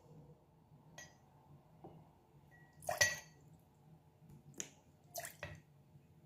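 Tablespoons of vinegar being poured into a glass jar: a few faint, short splashes and light taps of the spoon, the loudest about three seconds in.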